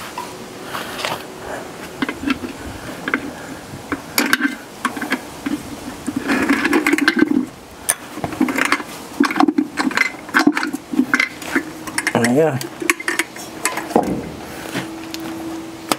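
Metal hand wrenches clinking and clattering as they are picked out and handled: a run of irregular sharp clicks.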